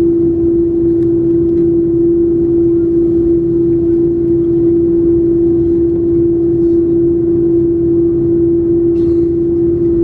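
Airbus A330-300's GE CF6 turbofan engines at low taxi thrust, heard inside the cabin over the wing: a steady rumble carrying one constant hum.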